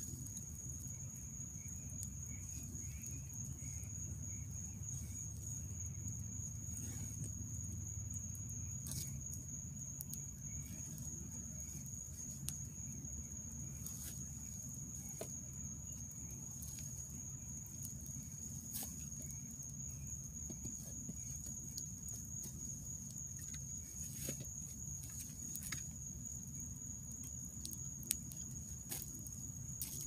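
Wood campfire burning, with scattered sharp crackles and pops over a low rumble. A steady high-pitched drone of night insects runs underneath.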